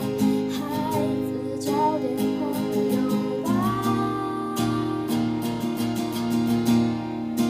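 A voice singing over a strummed acoustic guitar, with one long held note starting about halfway through.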